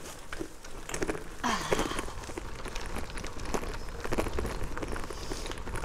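Gravel bike tyres crunching and crackling over a gravel canal towpath, with a steady low rumble of wind on the microphone.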